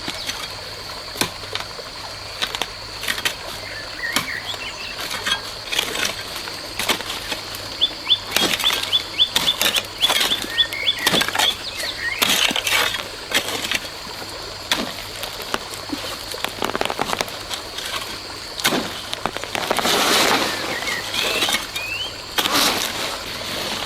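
Irregular clicks, knocks and rustling from handling or working something, over a steady high-pitched hum, with a quick series of bird chirps about eight seconds in.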